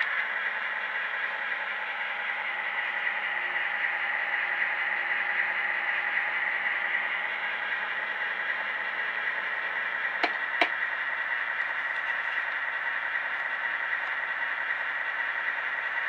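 Model MP15 diesel locomotive running on track, its sound decoder playing a steady diesel engine sound through a small speaker that gives it a thin sound with no deep bass. Two sharp clicks come close together about ten seconds in.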